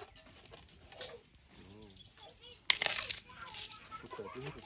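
A sharp metallic clank about two and a half seconds in, from a cooking pot being handled, with faint talk around it.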